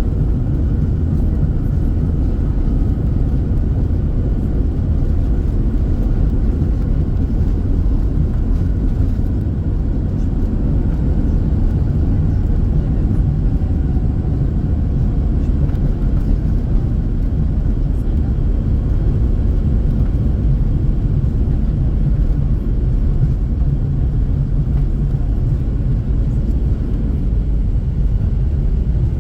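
Steady low cabin rumble inside a Swiss Airbus A321-111 on the ground after landing, its engines and airframe running with a faint steady whine above the rumble.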